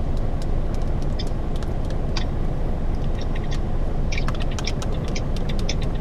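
Parked Isuzu Giga truck's diesel engine idling with a steady low rumble, heard inside the cab. Scattered light clicks of a spoon against a small cup.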